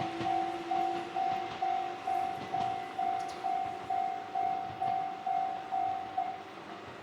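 Railway level-crossing warning bell ringing in even strokes about twice a second, then stopping about six seconds in. A lower steady hum from a train fades away in the first couple of seconds.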